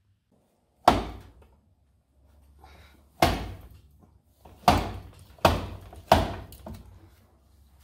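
Five hard clunks at uneven intervals as the rear CV axle of a 2003 Polaris Sportsman 500 H.O. is yanked to pop its inner end out of the differential.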